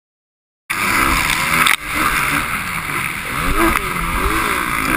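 Dirt bike engine revving up and down under a steady rush of wind noise on a helmet-mounted camera. The sound cuts in abruptly just under a second in, with a brief drop in throttle about a second later.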